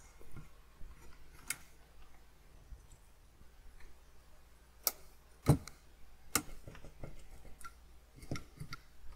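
A few scattered sharp clicks and light knocks from needle-nose pliers and a computer logic board being handled on a bench, the loudest about halfway through with a dull thud under it.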